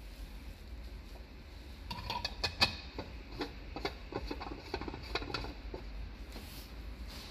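Amber plastic dome lens of a magnetic beacon light being fitted and twisted onto its base by hand: a run of small plastic clicks and scrapes, the sharpest about two and a half seconds in.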